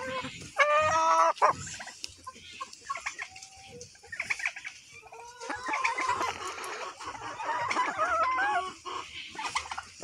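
Kabir chickens squawking and clucking. There is a loud squawk about a second in, then scattered clucks, and a longer run of squawks and clucks from about halfway through.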